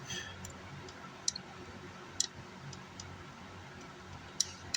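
A few short, sharp clicks, about four or five spread unevenly, against a quiet steady background with a faint hum.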